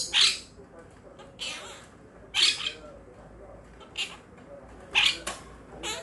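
Quaker parrots (monk parakeets) squawking: a series of short, harsh calls, roughly one a second.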